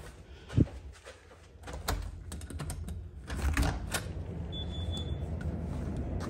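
A door being opened to go outside: a sharp thump about half a second in, then scattered clicks and clacks of the latch and door, with a steady low rumble setting in about three seconds in.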